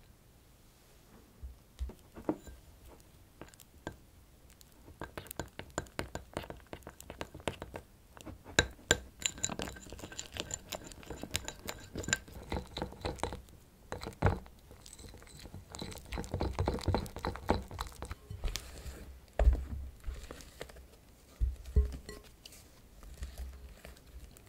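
A spatula stirring food colouring into thick meringue in small glass bowls, with irregular clinks and taps of the spatula against the glass and a few brief ringing notes from the glass. Near the end come a couple of dull knocks.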